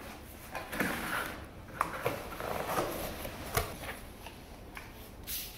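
Flat-pack furniture cardboard box being opened by hand: irregular rustling and scraping of cardboard, with a couple of light knocks.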